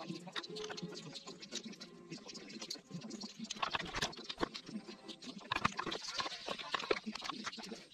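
Glass nail polish bottles clicking and knocking against each other and a wooden crate as they are sorted by hand. It is a quick, uneven run of sharp clicks that starts about three seconds in.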